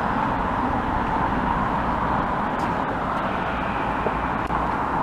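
Steady hum of road traffic on a town street.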